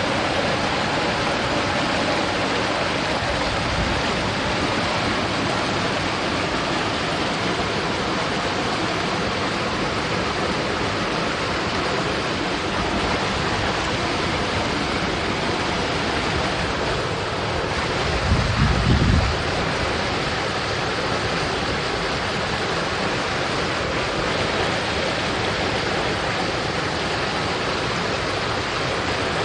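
Forest stream flowing steadily with an even rush of water. About two-thirds of the way through, a brief low rumble rises above it.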